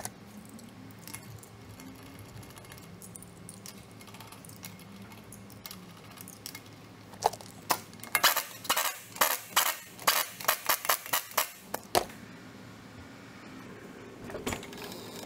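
Small metal objects, hand tools or parts, clinking and clattering in a quick run of sharp clicks for about five seconds midway, with a faint low hum around it.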